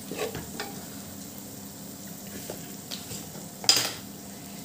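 Spiced masala sizzling and bubbling gently in an aluminium pressure cooker, with a wooden spatula scraping the pot a few times at the start. A sharp clatter comes near the end as the spatula is set down in the pot.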